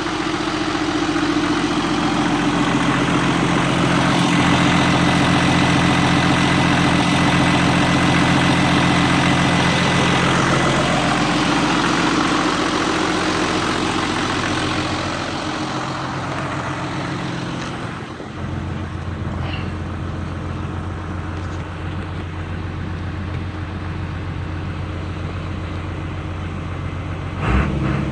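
Turbocharged vehicle engine running, with a thin, steady turbo whistle over it for roughly the first ten seconds. About eighteen seconds in the engine settles to a lower, steadier note, and a brief louder sound comes near the end.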